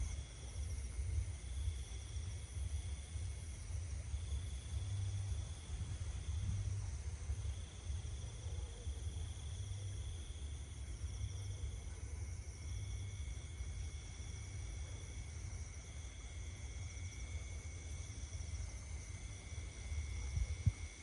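Insects trilling in several steady high tones, one of them starting and stopping every second or two, over a low gusty rumble of wind on the microphone.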